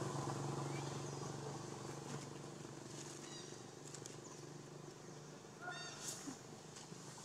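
Faint outdoor ambience: a low steady hum fading away, with short runs of quick high-pitched animal chirps about three seconds in and again near six seconds.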